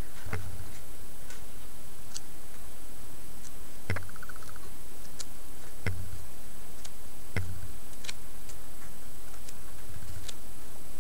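Glossy pages of a thick auction catalog being flipped by hand, giving irregular short snaps and ticks, a few of them heavier with a low thump, over a steady background hiss.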